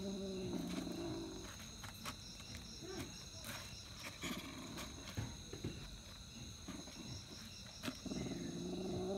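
A cat growls low and steadily over its prey, in the first second or so and again near the end, with scattered light clicks of dry rice grains shifting under it between. Crickets chirp steadily throughout.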